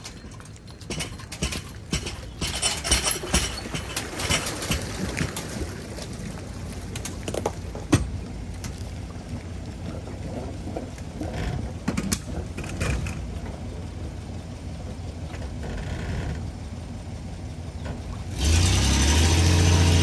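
Pickup truck engine running at low speed while backing the boat trailer down the ramp, with scattered sharp clicks and knocks. About 18 seconds in it gets much louder as the truck pulls the empty trailer out of the water, with water rushing off the trailer.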